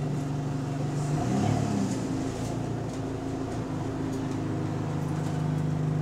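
Bus engine with a leaking exhaust droning, heard from inside the bus. About a second in the steady low drone breaks into wavering, shifting pitches as the engine speed changes, then settles back to the steady drone near the end.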